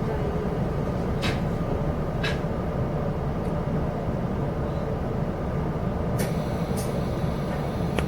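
Inside a Chu-Kuang express passenger carriage running along the line: a steady low rumble of the train in motion, with a few short sharp clicks, about 1, 2, 6 and 7 seconds in.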